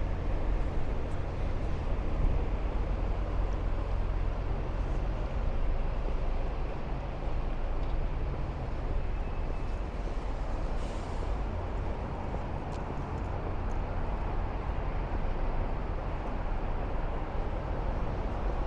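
City street traffic: a steady low rumble of passing vehicles, with a few faint clicks over it.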